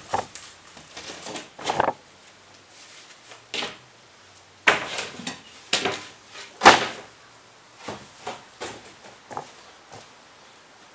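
A large plywood subfloor sheet being handled and laid down onto foam-board insulation on a bus floor: scattered knocks, scrapes and thuds. The loudest bumps come a little past halfway.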